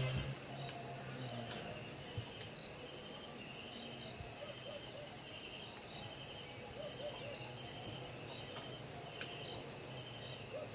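Insect chorus at dusk: crickets chirping in a fast, even pulse, with other short chirps repeating over it and a few fainter low calls.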